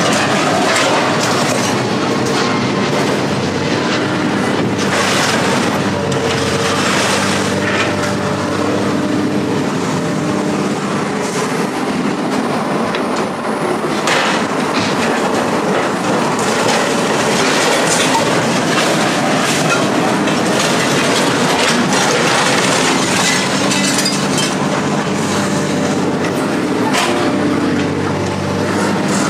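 Heavy machinery running loud and steady, with a constant engine hum under repeated metallic clanks, rattles and scraping as scrap metal is handled.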